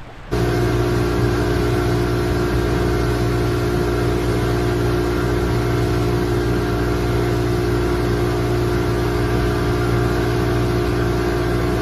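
Boat's outboard engine running under way, a steady drone with rushing wind and water over it. It starts abruptly just after the beginning.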